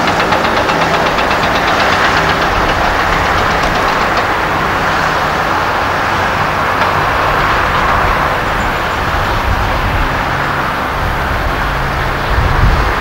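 Diesel engines of Mercedes-Benz heavy dump trucks running as the trucks drive past, over steady road and tyre noise. A rapid ticking clatter comes through in the first few seconds.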